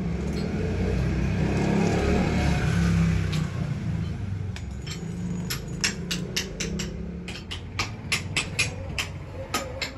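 A steady low mechanical rumble, with sharp metal clicks and clinks starting about five seconds in and coming several times a second toward the end, as a steel rod and tongs knock against a crucible of molten aluminium.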